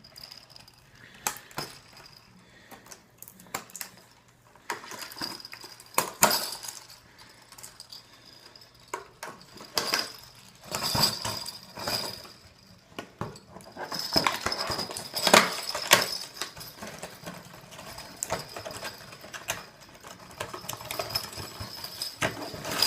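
Sleigh bells being unpacked: packaging rustles and knocks, irregular clicks and bumps, with the bells giving a thin high jingle now and then as they are handled, more often in the second half.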